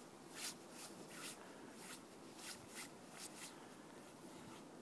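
Faint footsteps crunching in snow, a handful of short crisp steps at an uneven pace that thin out about three and a half seconds in.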